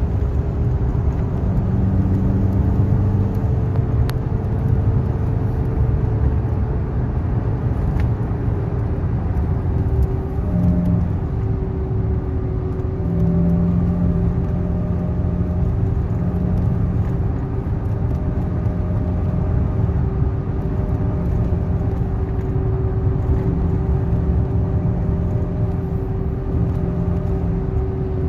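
Car engine droning steadily at highway speed with tyre and road noise, heard from inside the cabin.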